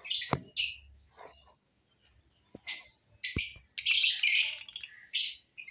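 Caged lovebirds chirping in short, high bursts, with a longer run of chatter about four seconds in. A couple of sharp clicks come in between.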